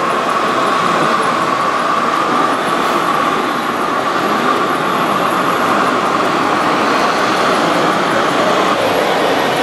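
Radio-controlled heavy-haulage model truck running, a steady mechanical whine that drops away near the end.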